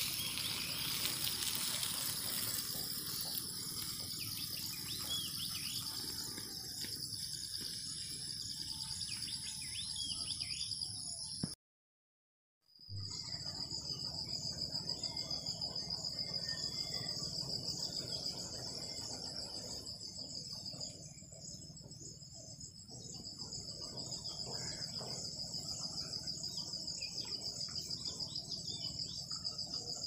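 Steady, high-pitched trilling of insects with a fine pulsing rhythm, and a few short bird chirps about eight to ten seconds in. The sound cuts out completely for about a second around twelve seconds in, then carries on.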